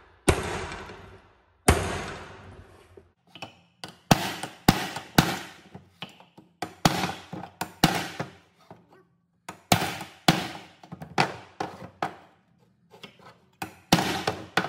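Hammer blows on a strut top mount resting on an old crankshaft pulley, knocking out its pressed-in studs: sharp metallic strikes, about two a second at times, with short pauses between runs. The first two blows ring on longer than the rest.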